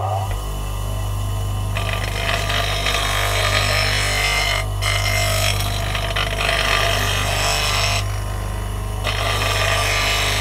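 Elu bench grinder motor running with a steady hum, and a steel bowl gouge being ground against the spinning wheel: a harsh grinding hiss comes in about two seconds in, drops out for about a second near eight seconds, then starts again.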